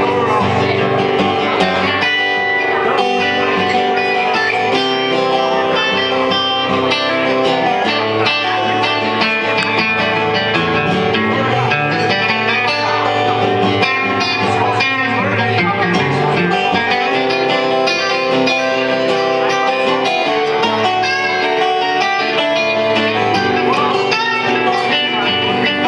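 Guitar-led instrumental break of a folk-rock song, with strummed and picked guitars and steady bass.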